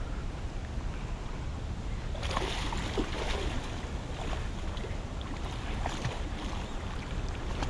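A hooked salmon thrashing and splashing at the water's surface, starting about two seconds in, with scattered sharp slaps. Under it there is a steady low rumble of wind on the microphone.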